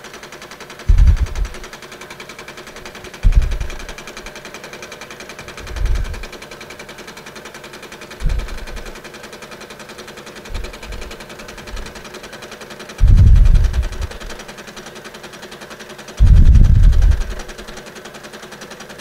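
PM-727M milling machine running a fly cutter at 600 RPM through a light power-fed cut in steel, with a steady whine and hum. Loud low rumbles cut in several times at irregular spacing, the longest about two-thirds of the way through.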